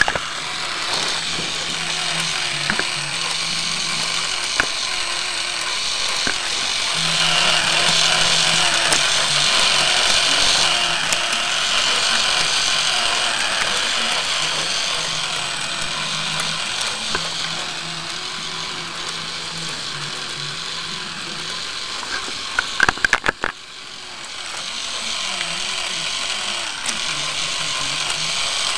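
K'NEX V6 engine model with a Roots-type supercharger running, its plastic gears, chains and rods making a steady rattling clatter. About three-quarters of the way through comes a quick cluster of sharp clicks and a brief drop in the noise.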